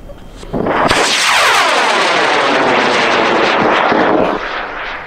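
Aerotech K-695R Redline high-power rocket motor igniting about half a second in and burning loudly for about three and a half seconds as the rocket lifts off. The sound sweeps downward in pitch as the rocket climbs away, then fades.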